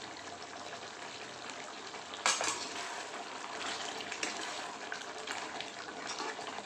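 Chicken and potato gravy bubbling in a steel kadai while a spoon stirs it, a steady sizzling hiss with a sharp clink of the spoon against the pan about two seconds in and a few lighter scrapes and taps after.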